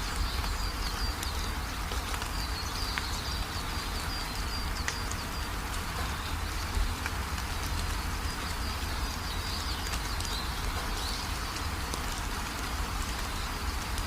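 Small birds chirping repeatedly over a steady hiss and low rumble, with scattered faint clicks.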